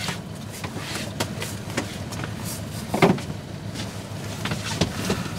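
A sailing yacht's inboard diesel engine running steadily, left in gear-free charging duty while under sail, with a few light knocks and clicks from line handling in the cockpit, the loudest about three seconds in.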